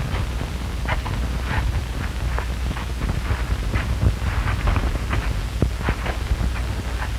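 Noise of an old film soundtrack: a steady low hum with irregular crackles and pops scattered throughout.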